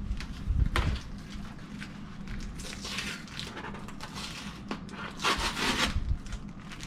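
Cardboard mailer packaging being handled and worked open by hand: rubbing and scraping with a couple of sharp knocks near the start, and a louder rough scrape or rip about five seconds in.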